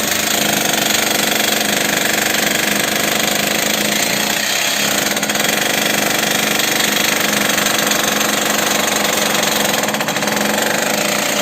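Demolition hammer (concrete breaker) hammering steadily as it breaks concrete.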